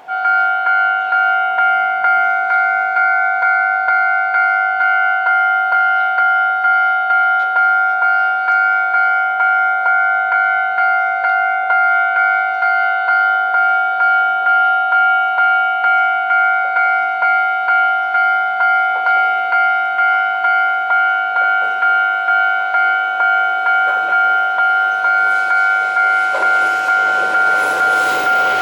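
Japanese railway level-crossing warning bell, starting suddenly and ringing a steady two-tone ding about twice a second. Near the end the noise of an approaching train grows underneath it.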